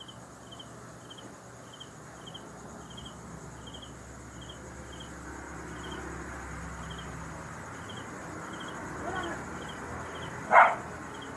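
Cricket chirping steadily, about two short high chirps a second, with one short loud sound near the end.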